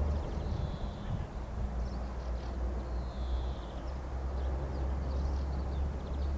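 Outdoor ambience: a steady low rumble with a few faint, high bird calls over it.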